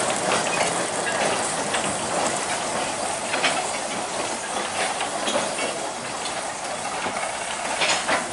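Narrow-gauge freight train wagons rolling along 2 ft gauge track, with wheels clicking and clanking on the rails and couplings rattling. Now and then a sharper click stands out, and the sound slowly fades as the train draws away.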